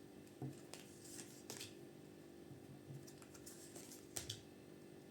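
Tarot cards being handled on a table: a few faint clicks and taps, two close together about four seconds in.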